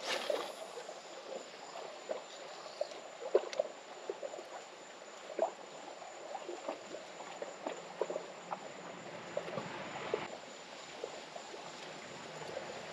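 Water lapping and sloshing against shoreline rocks, with small irregular slaps and drips.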